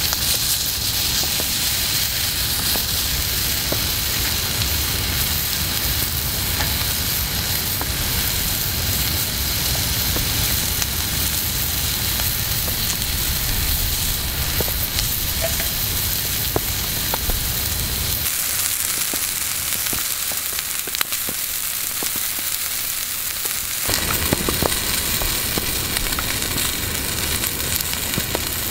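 Sliced meat sizzling on a thick black steel griddle plate, a steady hiss with scattered small pops.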